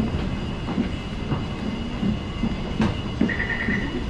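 Metro train running through an underground station, a steady low rumble echoing off the platform. A high electronic beeping starts near the end.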